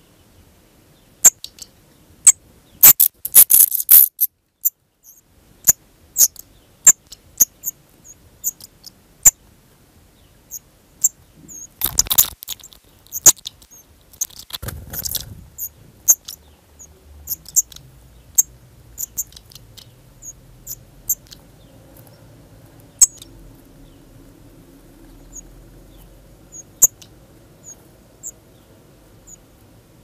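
Black redstarts at the nest: many short, sharp, high chirps repeated irregularly. There are two longer, louder flurries about twelve and fifteen seconds in, as a parent comes to feed the nestlings.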